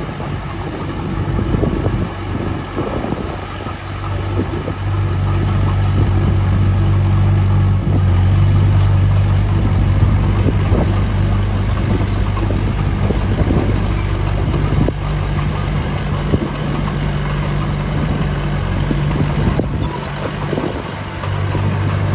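Diesel engine of heavy earthmoving machinery running steadily under load, growing louder about five seconds in and easing off briefly near the end.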